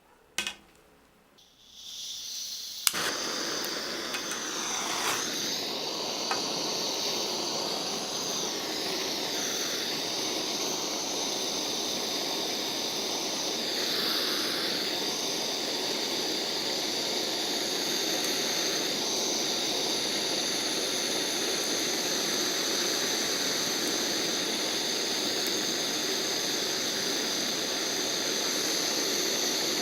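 Blowtorch lit with a click about three seconds in after its gas starts hissing, then the flame running with a steady loud hiss.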